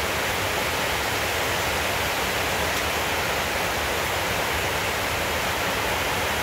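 A steady, even hiss that does not change and has no distinct sounds in it.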